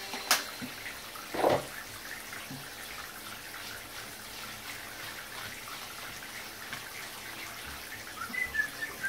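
Water running steadily from a handheld shower into a bathtub while a dog is washed, with a couple of brief louder noises in the first two seconds.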